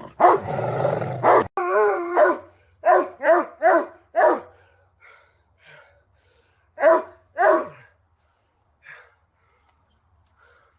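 A dog growling for about a second, then barking: four quick barks, then two more after a pause, and a faint last one near the end.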